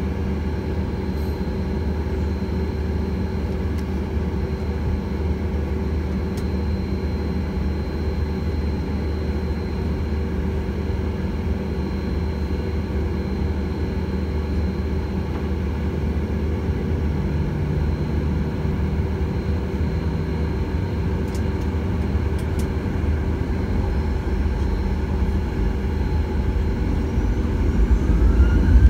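Airliner jet engines at taxi power, heard inside the passenger cabin: a steady low hum with a faint high whine. Near the end the engines begin to spool up, with a rising whine and growing louder.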